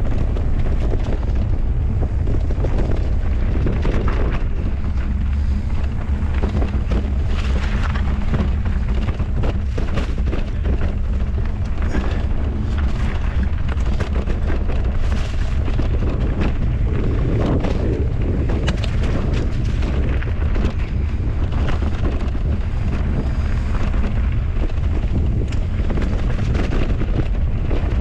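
Heavy wind buffeting the microphone during a fast run down a trail: a steady, loud low rumble with frequent short knocks and rattles throughout.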